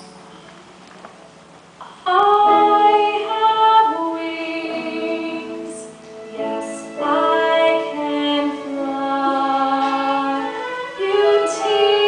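Voices singing a stage-musical number, with long held notes in several parts at once. The singing comes in about two seconds in after a quieter opening.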